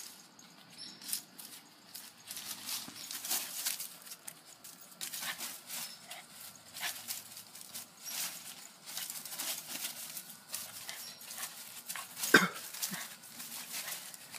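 Leaves and ground cover rustling and crackling as a Shiba Inu and a tabby cat scamper and tussle through them. One short, sharp sound about twelve seconds in is the loudest.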